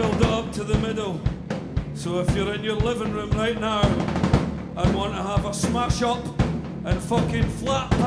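A live band playing: a full drum kit with bass drum and snare hits under electric guitars and bass, and a male singer's voice on top.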